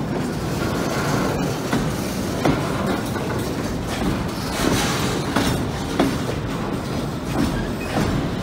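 Empty autorack freight cars rolling past at close range: steady rumble of steel wheels on rail, with sharp clicks and knocks coming at irregular intervals.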